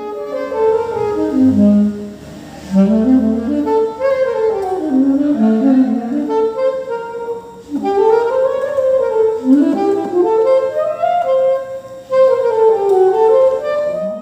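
A saxophone playing a melody in flowing runs that climb and fall, with short breaks between phrases about three times.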